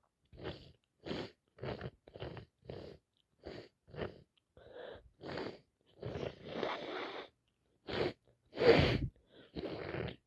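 A person with a congested head cold sniffing repeatedly through a blocked nose: about nine short, quick sniffs in the first five seconds, then longer, louder breaths through the nose, the loudest about nine seconds in.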